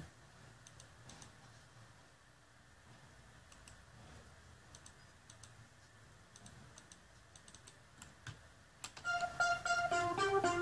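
Faint scattered clicking of a computer keyboard or mouse. About nine seconds in, a plucked-string instrument sound starts playing a short melody of repeated notes: a new sound being tried out for a beat.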